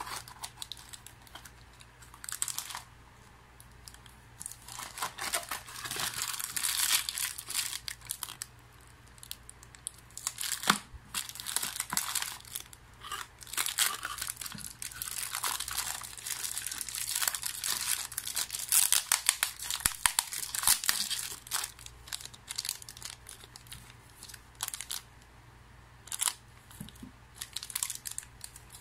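Beyblade Random Booster packaging being opened by hand: plastic wrapping crinkling and tearing in irregular bursts, with small sharp clicks.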